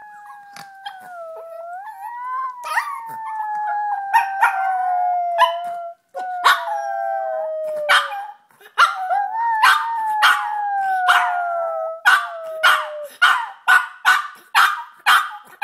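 Yorkshire terrier howling: long, wavering notes that slide slowly downward, broken up by short, sharp yips. Near the end the howl breaks into a quick run of yips, about two a second.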